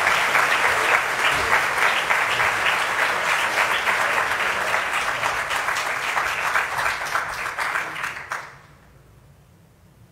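Audience applauding, a dense patter of many hands clapping that dies away about eight and a half seconds in.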